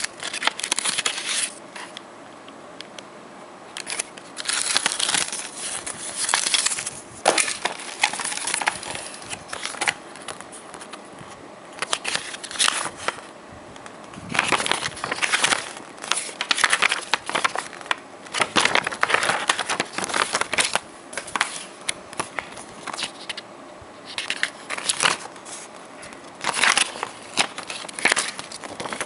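Paper rustling and crinkling as a printed catalog booklet and paper leaflets are handled, unfolded and leafed through, coming and going with short pauses between.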